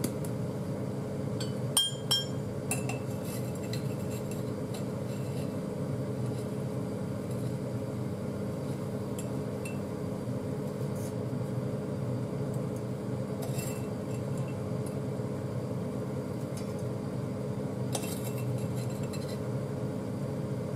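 A metal spoon clinks against a glass jar a few times while sugar is scooped out: a cluster of clicks about two seconds in, and more around two-thirds of the way through and near the end. A steady hum runs underneath.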